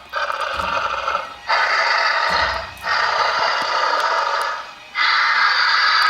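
Xenomorph hisses and snarls played from the life-size Big Chap figure's built-in sound unit: four breathy, rasping bursts of one to two seconds each, with short breaks between them.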